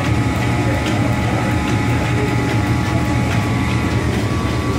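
Antique machine-shop machinery running: a steady low hum with a thin whine and light repeated clicks.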